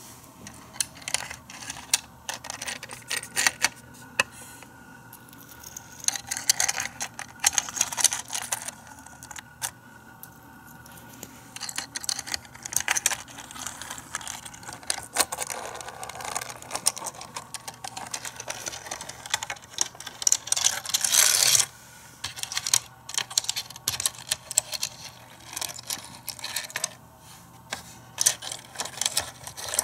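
Micro Machines toy cars and the plastic playset clicking and rattling as the small cars are handled and pushed along its ramps and roads, in scattered irregular clicks. About two-thirds of the way through comes a denser, louder rattle lasting about a second.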